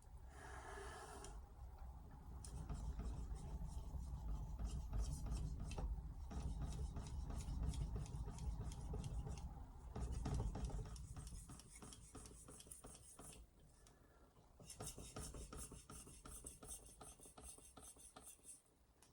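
Hatsukokoro carbon-steel knife being sharpened on a 5000-grit Altstone RIN splash-and-go whetstone: rapid back-and-forth strokes of the blade scraping across the wet stone, in spells with a short lull about two-thirds through.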